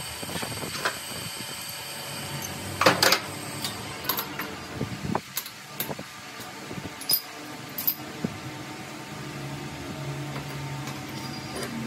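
Hand tools and steel parts clinking and clanking against metal while a lathe chuck and a vise are worked, over a steady mechanical hum. The loudest is a ringing metallic clank about three seconds in, followed by scattered lighter clicks and knocks.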